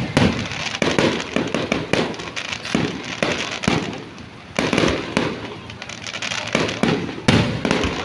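Fireworks going off in quick succession: many sharp bangs and crackles, easing off briefly about halfway through before a loud bang sets them going again.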